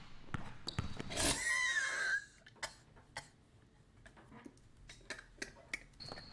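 A man's wheezing, coughing laugh: a sharp cough-like burst about a second in, then a brief wavering high-pitched wheeze, followed by near-quiet with a few faint clicks.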